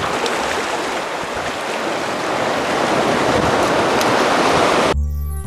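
Surf washing over a rocky shore, a steady rushing that swells slightly, cut off abruptly near the end as music starts.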